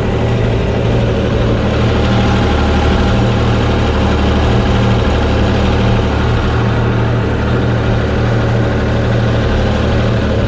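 Yamaha TR-1 three-cylinder four-stroke watercraft engine idling steadily while hot, run out of the water with the flush hose shut off so the cooling water is blown out of the engine.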